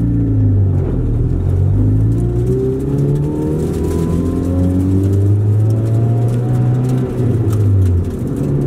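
1997 Honda Civic's four-cylinder engine, heard from inside the cabin while driving. It picks up speed, the engine note climbing in pitch a couple of seconds in, then holds a steady drone and eases off near the end.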